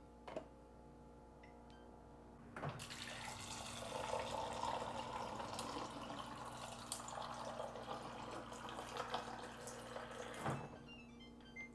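The water dispenser of a GE Adora French-door refrigerator, on autofill, pours a thin stream of water into a metal tumbler. The pour starts about two and a half seconds in, runs steadily, and cuts off by itself shortly before the end.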